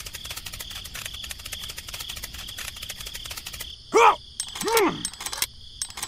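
Crickets chirping in a fast, steady trill. About four seconds in, two short squeaky cartoon-voice calls follow one another, each rising and falling in pitch.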